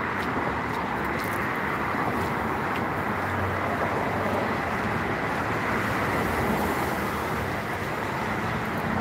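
Steady road-traffic noise, an even hiss with no single event standing out.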